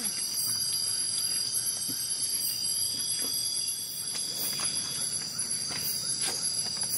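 Steady chorus of night insects in tropical forest: several high shrill tones held without a break, with a few faint clicks scattered through.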